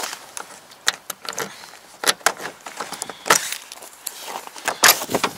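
A run of irregular clicks, rattles and knocks of handling around a car, with louder clusters about two seconds in, a little past three seconds, and near the end.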